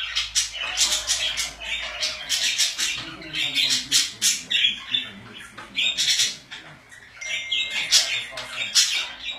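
Pet budgerigars chattering and squawking, with rapid, overlapping sharp calls.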